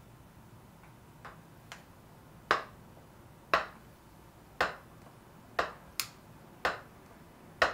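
A run of sharp ticks, about one a second, each ringing out briefly. The first couple are faint; after that they are louder and evenly spaced.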